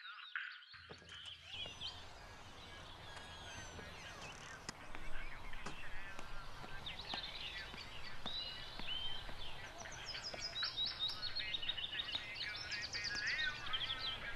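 Outdoor ambience: many small birds chirping and singing in quick, varied calls over a steady low background rumble, starting about a second in.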